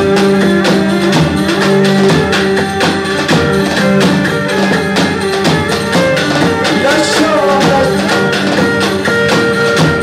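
Music with a steady percussion beat under melodic instruments.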